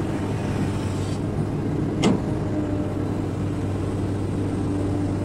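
XCMG hydraulic excavator's diesel engine running steadily while the machine works, with a single sharp metallic clank about two seconds in. A steady higher tone joins the engine hum partway through.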